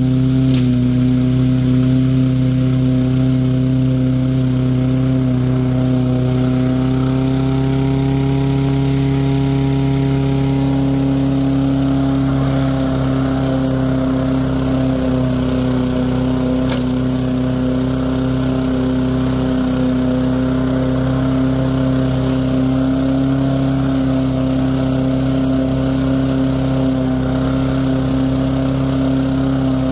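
Poulan push lawn mower's small single-cylinder gas engine running at a steady, even speed while cutting grass, holding its pitch under load without bogging down.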